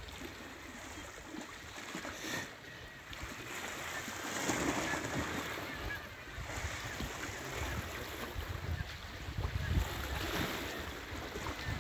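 Sea surf washing against rocks, swelling louder a couple of times, with wind rumbling on the microphone.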